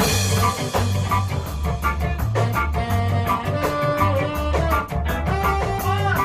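Ska band playing an instrumental passage with bass, drum kit and guitar over a steady beat; a cymbal crash rings out at the start, and held melody notes sound through the middle.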